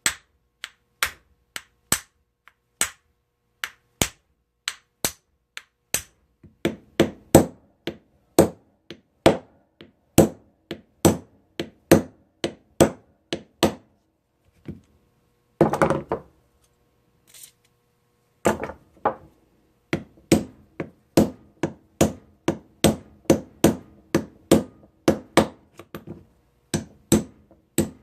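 Small hammer striking a part of an old pneumatic impact wrench over and over, trying to knock a stuck piece out. The blows come about once a second at first, then about two a second, with a short break about halfway before the steady hammering resumes.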